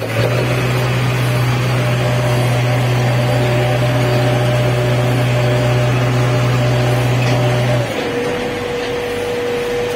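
Diesel engine of a JCB 3DX backhoe loader running steadily under way, heard inside the cab along with road noise. About eight seconds in, the engine note steps down and gets a little quieter.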